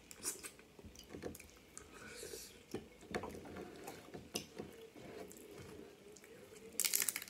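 Wet close-up eating sounds of snow crab: sucking and chewing the meat, with scattered smacks and clicks. Near the end comes a quick run of sharp cracks as a crab leg shell is snapped open by hand.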